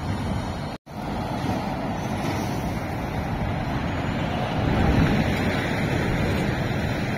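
Lorry traffic: the diesel engine and tyres of an articulated tanker lorry coming round a roundabout, with wind buffeting the microphone. The sound cuts out for an instant just under a second in, then grows a little louder about five seconds in as the lorry draws nearer.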